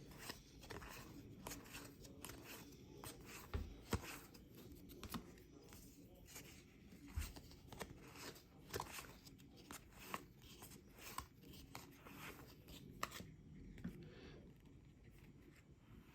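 Faint, irregular soft clicks and slides of cardboard trading cards being flipped through one at a time in the hands.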